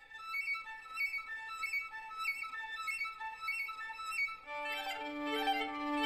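Instrumental background music: a short figure of high notes repeating about every two-thirds of a second, joined about four and a half seconds in by a held low note and a fuller accompaniment.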